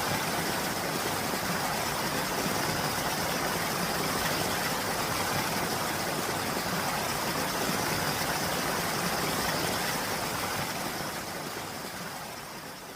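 Steady rain falling, an even hiss, fading out over the last couple of seconds.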